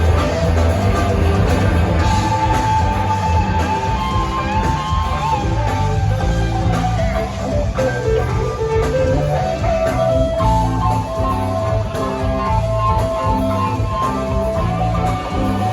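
Live rock band playing with electric guitar leads over bass and drums, the guitar holding long sustained notes.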